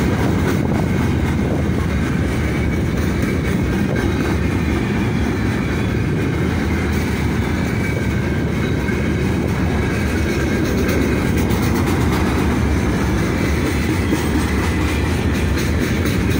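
Freight train of open gondola wagons rolling past close by: a steady, loud rumble of steel wheels on rail, with the wheels clicking over the rail joints.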